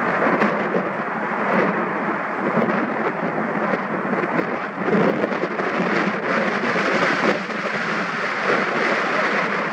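Airbus A350-900's twin Rolls-Royce Trent XWB turbofans at takeoff thrust: a loud, steady, rough rumble as the jet lifts off and climbs away.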